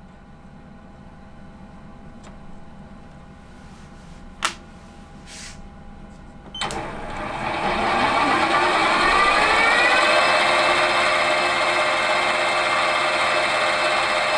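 A small metal lathe is switched on about two-thirds of the way in: its motor and drive whine, rising in pitch for about three seconds as the three-jaw chuck spins up, then run steadily at speed. Before that it is quiet, with one sharp click about four seconds in.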